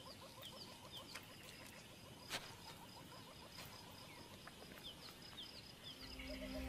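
Faint wild bush ambience: a bird's short falling chirps, repeated every second or so, over a steady high tone, with a few sharp clicks, the loudest about two seconds in. Soft music comes in near the end.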